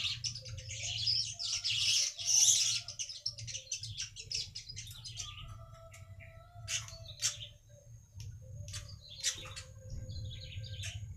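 Weaver birds (burung manyar) chattering: a dense run of rapid high chirps for the first few seconds, then scattered sharp chirps, over a low steady hum.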